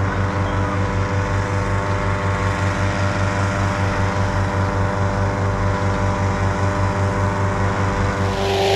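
Petrol engine of a hot-air balloon inflation fan running steadily at speed with a regular throb, blowing cold air into the envelope, growing louder with a rushing hiss near the end.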